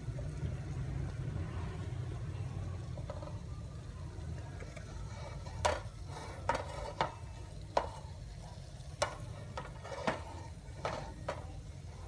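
Tomato and egg frying in a nonstick pan over a steady low hum, with a run of sharp, irregular pops and spits starting about halfway through.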